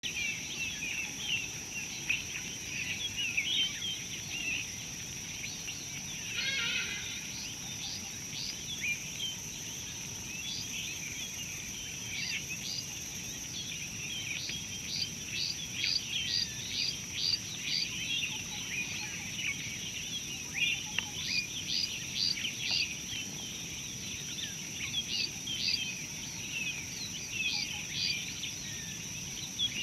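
Many small birds chirping and calling over a steady, high-pitched insect drone, with a quick run of repeated chirps about halfway through.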